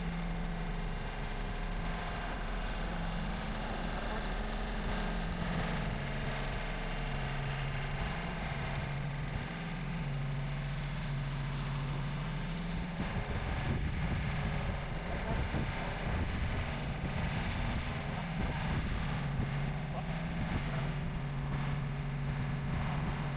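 Compact tractor's engine running, its speed stepping up and down a few times, with a rougher stretch in the middle.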